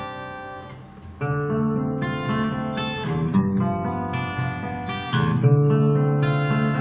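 Carbon-fibre acoustic guitar being played: a chord rings and fades away, then about a second in the playing picks up again with strummed chords changing every second or so.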